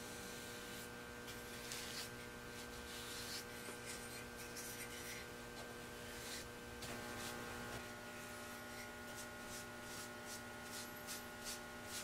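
Paintbrush stroking oil-based polyurethane onto cedar wood: soft, repeated brushing strokes that come shorter and quicker in the second half, over a steady low hum.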